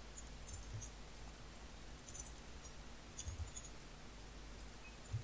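Faint computer keyboard typing: light key clicks in short irregular clusters over a low steady hum.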